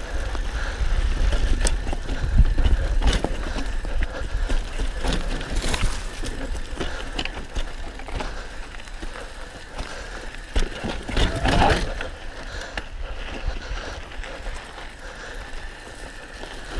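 Mountain bike riding fast down a dry dirt trail: tyres crunching over loose earth and stones, with the bike rattling and clicking over bumps. Wind rumbles on the camera microphone, and a louder rough patch comes about two-thirds of the way through.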